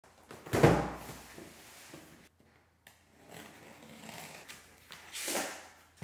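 Cardboard boxes being handled: a heavy box set down with a thud about half a second in, light scuffs and rustles of cardboard, then a scraping swish near the end as the flaps of a cardboard shipping box are pulled open.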